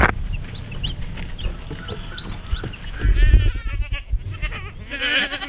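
Baby chicks peeping in short, high chirps, then goats bleating: a quavering bleat about three seconds in and another starting near the end.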